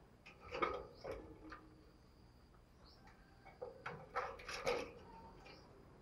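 Spotted dove moving about in its wire cage: two short clusters of clicks and rustles, about half a second in and again around four seconds in.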